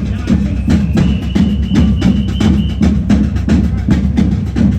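Music with a steady percussion beat: sharp wood-block-like clicks about four a second over a pulsing low drum, with a thin held high tone partway through.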